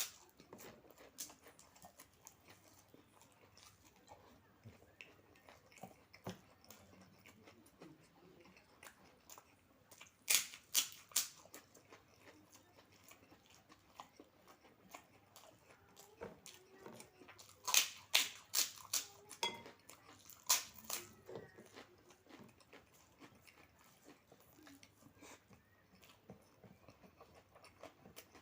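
Close-up chewing of food in the mouth, with two bouts of sharp, crisp crunching, about ten seconds in and again around eighteen to twenty-one seconds, as kerupuk crackers are bitten and chewed.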